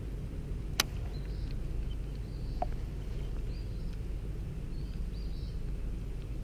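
Steady low outdoor rumble with faint, repeated chirps of small birds. A single sharp click about a second in.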